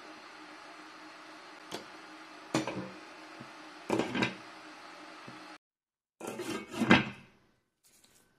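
Glass pot lid knocking against a steel cooking pan: a few sharp knocks as it is set on, then, after the sound drops out suddenly, a louder clatter of the lid being handled a second or so later. A faint steady hiss lies under the first knocks.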